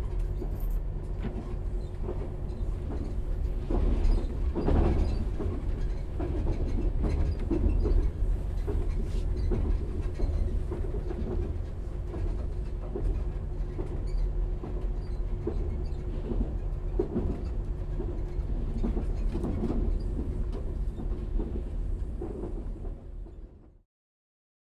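A train riding slowly: a steady low rumble with a constant hum, and scattered clicks and rattles from the wheels and carriage. It fades out quickly near the end.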